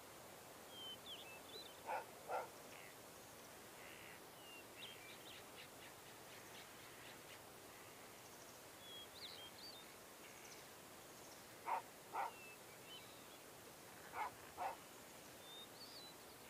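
Faint outdoor ambience with small birds chirping now and then. Three times, a louder short call comes twice in quick succession.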